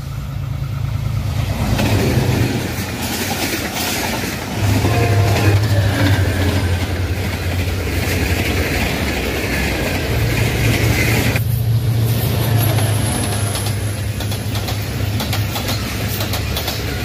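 Pakistan Railways diesel locomotive and its passenger coaches passing at speed: a steady low engine hum under the rushing, rumbling noise of the train on the rails. The sound changes abruptly about eleven seconds in, where one pass-by gives way to another.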